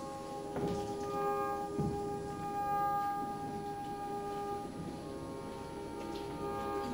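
Ambient drone music: several held tones layered over one another, with notes fading in and out, and two soft knocks about half a second and two seconds in.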